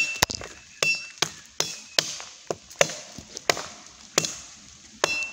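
Tramontina machete chopping thin sticks: a quick, irregular series of about ten sharp chops, roughly two a second, several with a brief metallic ring from the blade.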